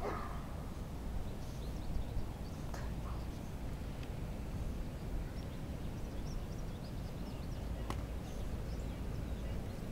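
Outdoor background noise: a steady low rumble of wind on the microphone, with faint scattered bird chirps and one sharp click about eight seconds in.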